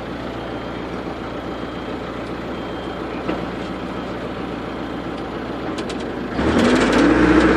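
Backhoe loader's engine running steadily in the cab, then opening up about six seconds in as the machine accelerates, the drone growing clearly louder.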